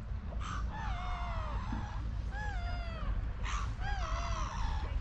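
Gulls calling: a series of drawn-out, mewing cries that slide down in pitch, about one a second, over a low steady background rumble.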